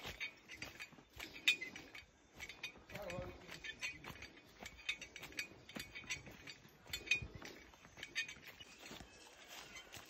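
Footsteps crunching on dry leaf litter along a dirt forest trail, an irregular run of short crackles and crunches at walking pace.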